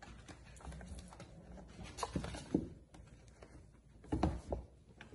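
Two Bengal kittens play-fighting on a hardwood floor, their paws scrabbling and thumping as they tumble over a stuffed toy, in irregular bursts with louder knocks about two seconds in and again near the end.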